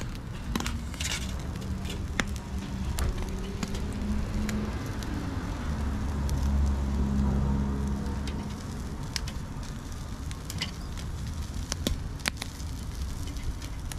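Food sizzling on a grill, with a steady crackle and scattered sharp pops. A low droning hum swells and fades through the middle.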